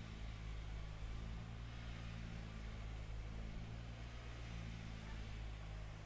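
A heavy construction machine's engine running steadily and faintly, a low even drone, as specialised mixing equipment blends slurry into the soil.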